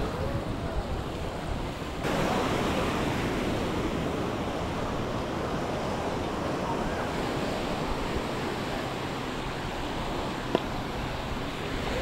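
Small Mediterranean waves washing up on a sandy beach in a steady rushing hiss that grows louder about two seconds in, with wind buffeting the microphone. A single sharp click comes near the end.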